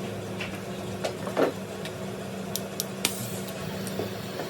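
Steady low electrical hum with a few light clicks and taps scattered through it.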